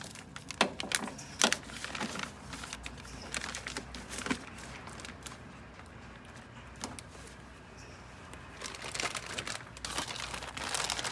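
Plastic crinkling and scattered sharp clicks from a wiring harness being pushed back into its plastic trunking, with a busier patch of crinkling near the end.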